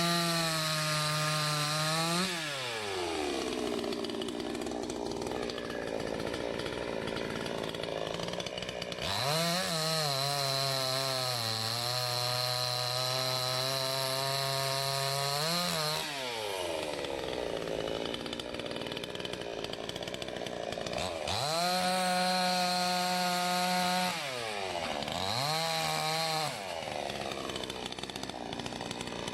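Two-stroke gas chainsaw (Salem Master) revved to full throttle four times, falling back to idle between. The longest run, in the middle, holds high with its pitch sagging slightly as the chain cuts through wood.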